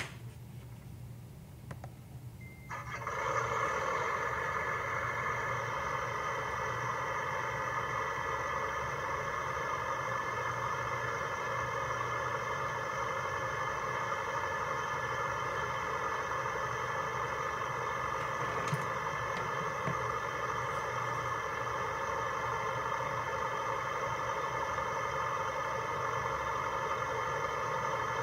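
Sound module in a ScaleTrains HO-scale CIMC 53-foot refrigerated container playing the recorded sound of a reefer refrigeration unit running, through the model's small speaker. It starts suddenly about three seconds in and then runs steadily.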